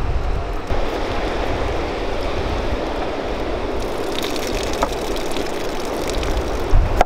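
Water splashing over a clay dish of fresh vegetables and pouring off its tilted rim, a steady splashing, with wind rumbling on the microphone underneath.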